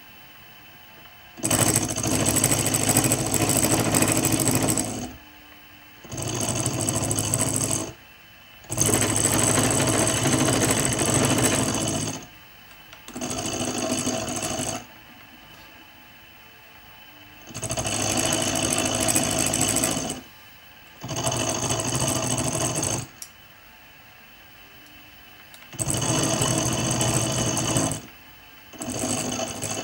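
Bench-top mini milling machine running in eight short bursts of about two to three seconds each, the end mill cutting metal; each burst starts and stops abruptly with short quiet gaps between.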